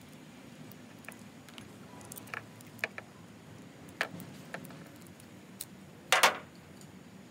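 Hand tools and hood-lock hardware being handled during installation: scattered light metallic clicks and clinks, with a louder clatter about six seconds in, over a faint low hum.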